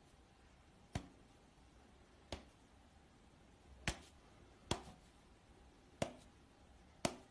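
Finger snaps: six sharp single snaps, irregularly spaced a second or so apart.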